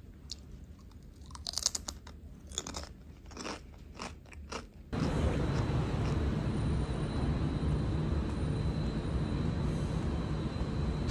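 Crunching and chewing of a crispy fried snack: a string of short crackling bites over the first five seconds. Then it cuts abruptly to a louder steady noise with a faint high whine.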